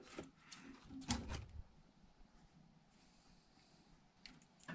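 Faint knocks and clicks of a hand working the wire connectors on a furnace's control transformer inside the sheet-metal cabinet, the loudest about a second in.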